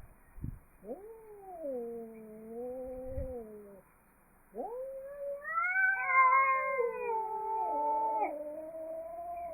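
Cats caterwauling in long, drawn-out yowls with wavering pitch. One cat calls about a second in, and after a short pause two cats yowl over each other.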